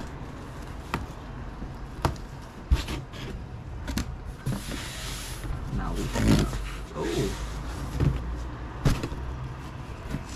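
Handling noise from fabric being pulled out of a box: a few sharp knocks and, in the middle, a couple of seconds of rustling.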